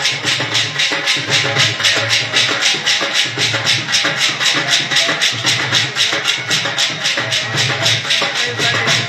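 Dhol drumming for a jhumar folk dance: fast, even strokes, with a deeper beat that comes round about once a second.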